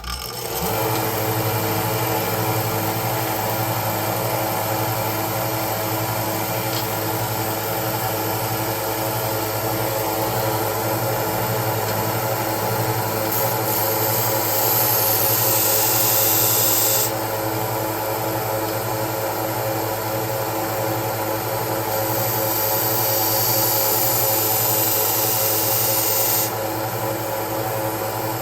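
Bucktool 1x30-inch belt and disc sander switching on and running steadily. Twice, for about three to four seconds each, a knife blade's edge is pressed to the 120-grit belt, adding a louder high grinding hiss.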